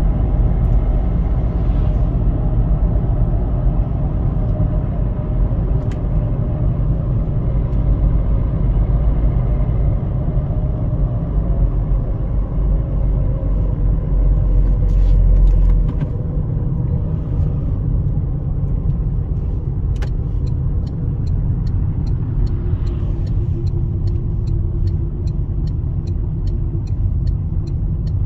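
Car interior while driving: steady tyre and engine rumble, the low rumble easing a little about halfway through. From about two-thirds of the way in, the turn indicator ticks fast and evenly, about three clicks a second.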